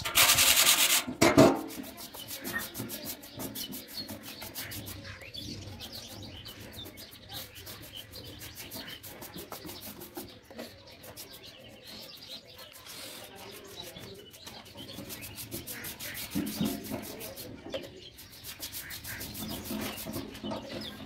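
Sandpaper rubbed by hand over the rusty sheet-steel tray of a homemade wheelbarrow, loud and scratchy, stopping abruptly about a second in. After that, a quieter rubbing of a paintbrush spreading paint over the steel tray, with birds chirping faintly.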